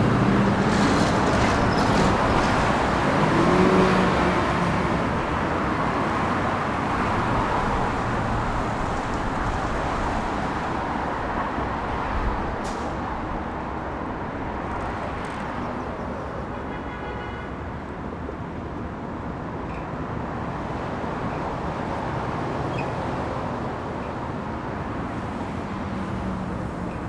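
Busy city street traffic: a steady rush of cars and other vehicles passing, loudest in the first few seconds and then easing off. A brief high-pitched tone sounds about two-thirds of the way through.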